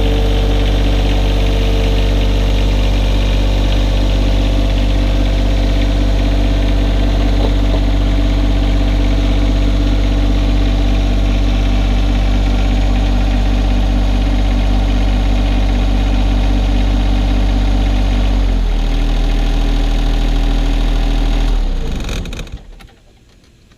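John Deere 1025R compact tractor's three-cylinder diesel engine running steadily. About three-quarters of the way through, the engine speed drops, and a few seconds later the engine is shut off and dies away.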